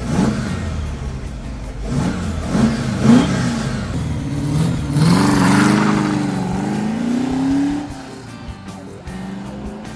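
Ford 302 cubic-inch V8 with a Holley carburettor and bundle-of-snakes crossover exhaust revving: a few short blips, then a longer rev about halfway through that eases and climbs again before dropping away near the end.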